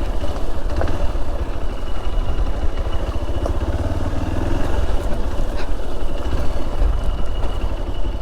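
Hero Xpulse motorcycle's single-cylinder engine running steadily at low revs, with a few light clicks and a thin, steady high tone underneath.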